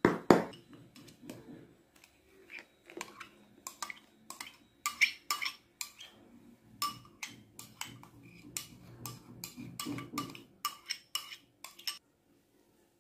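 A metal spoon clinking against a small glass bowl as a frothy yeast mixture is poured and tapped out into flour: a quick, irregular string of sharp clinks that stops suddenly near the end.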